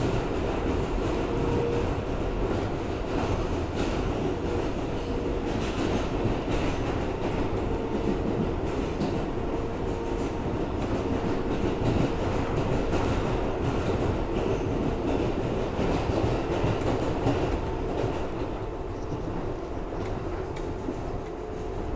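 R142A subway car running through a tunnel: a steady rumble of wheels on rail with a faint held tone and a few sharp clacks. It gets a little quieter near the end as the train comes out of the tunnel into the open.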